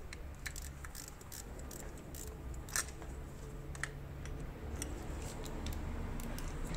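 Short metallic clicks of a hand wrench tightening the bolts of a DSG mechatronic accumulator mount, about two a second at first and then more scattered, one sharper click near the middle, over a low steady hum.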